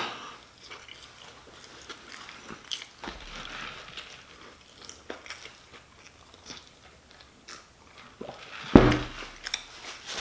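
A person chewing food close to the microphone, with many small crunchy clicks. A single louder thump comes near the end.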